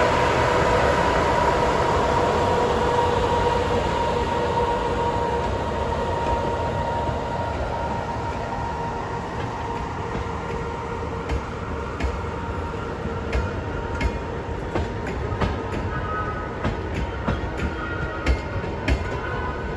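A train passing at speed: the EP2K electric locomotive goes by with a steady whine that fades as it moves away, then the double-deck passenger coaches roll past. Their wheels click over the rail joints, sharper and more frequent toward the end.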